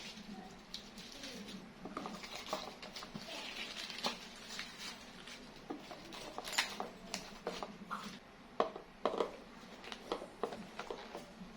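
Kitchen handling sounds of food being prepared: irregular rustling, light taps and clicks, over a faint steady low hum.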